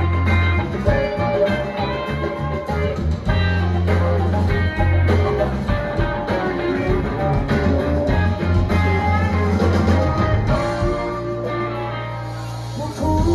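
Live rock band playing an instrumental passage: electric guitars over a bass guitar line.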